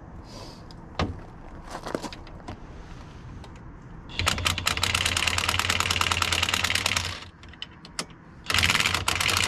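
Impact wrench hammering at a stuck knuckle bolt in two bursts: a long one of about three seconds in the middle, then a shorter one near the end, with a few tool clicks before them.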